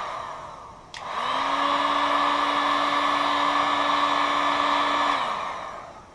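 A hot-air heat gun's fan is blowing with a steady whine while it heats the screen to soften the glue under the glass. It winds down at first, clicks back on about a second in, runs steadily for about four seconds, then winds down again near the end.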